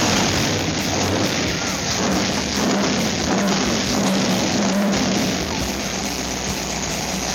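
Ford 351 Windsor V8 running steadily, with rock music playing over it.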